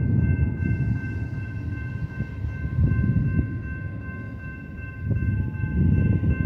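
Freight cars of a long double-stack container train rolling past, a heavy rumble that swells and eases every second or two, with steady high-pitched ringing tones held over it.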